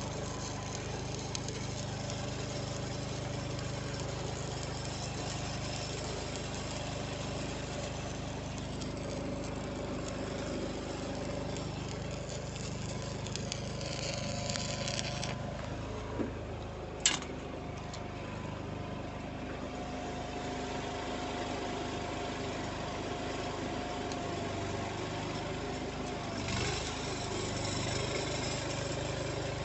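An engine idling steadily. A single sharp click comes a little past halfway, and there are stretches of hiss over the engine.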